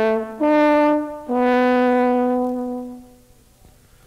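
Instrumental music: a short phrase of held notes, the last one long and fading out about three seconds in.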